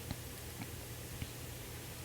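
Quiet room tone: a steady low hum under faint hiss, with a few faint clicks.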